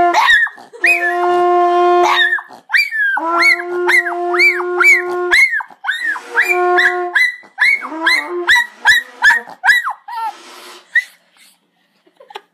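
A hunting horn blown in several long, steady notes while a dog howls along in high yowls that rise and fall over each note. After the last horn note, about seven seconds in, the dog goes on alone with short howls and yelps for a few seconds before it stops.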